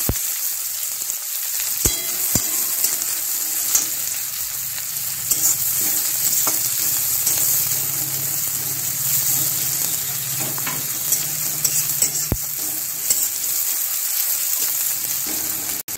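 Chopped onion sizzling steadily as it fries in oil in a kadai, stirred with a spatula that taps sharply against the pan a few times, mostly in the first few seconds and once more near the end.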